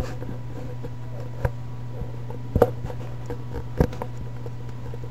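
A steady low hum with four light knocks, about one every second or so.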